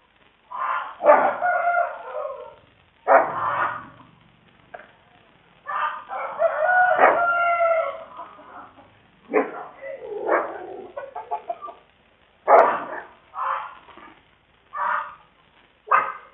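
Chickens squawking and crowing again and again: a few long calls of up to two seconds with shorter ones in between, picked up by a CCTV camera's microphone.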